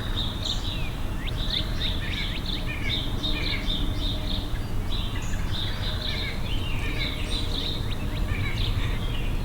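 Several songbirds chirping and calling, many quick high chirps and downward-sweeping notes, over a steady low rumble of background noise.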